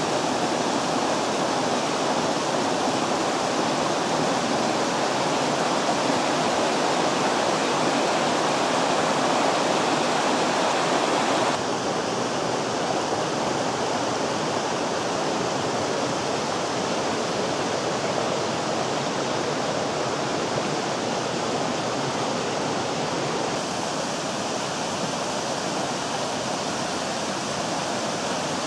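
Mountain stream rushing and splashing over rocks and small cascades: a steady, dense rush of water. Its tone shifts abruptly twice, about a third of the way in and again about four-fifths of the way through.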